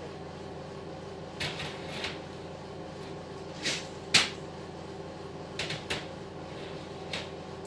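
A series of sharp knocks and clicks in small groups, the loudest about four seconds in, over a steady hum.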